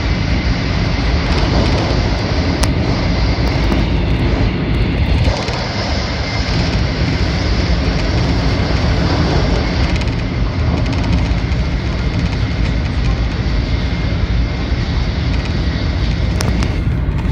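Steady running noise of a 700 series Shinkansen at high speed heard inside the passenger cabin, a deep rumble of wheels and rushing air with a faint steady high whine. The noise dips slightly about five seconds in.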